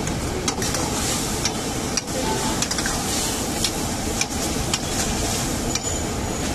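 A long metal ladle stirs and scrapes thick gravy in a steel wok, with sharp clinks of metal on metal every half second to a second. Under it runs a steady rushing noise and the sizzle of oil frying in the next wok.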